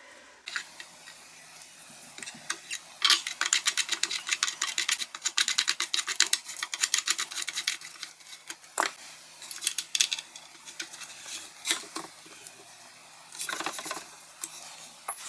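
Metal furniture screw being driven by hand with a screwdriver into the table frame's barrel nut: a fast run of small clicks for several seconds, then a few scattered single clicks.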